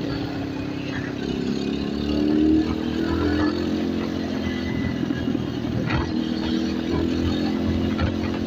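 Motorstar Z250R cafe racer's engine and exhaust running under way, the engine note rising around two seconds in and then settling. A sharp pop comes about six seconds in.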